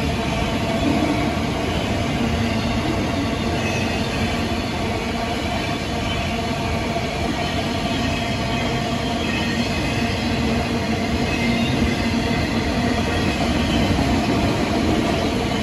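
Canadian National train rolling past, a steady, unbroken noise of its cars and wheels on the rails.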